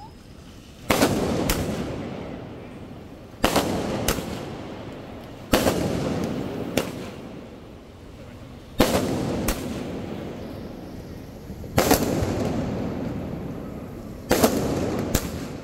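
Aerial fireworks bursting overhead: six loud bangs, one every two to three seconds. Each bang is followed by a long rolling echo, and most by a second, smaller crack about half a second later.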